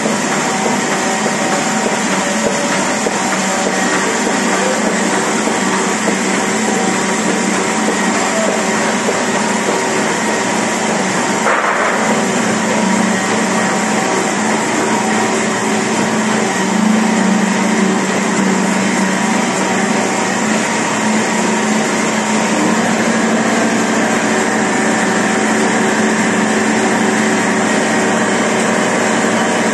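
2006 Adast Dominant 847 four-unit sheetfed offset printing press running steadily: a dense, even machine din with several steady hums. A single short knock partway through.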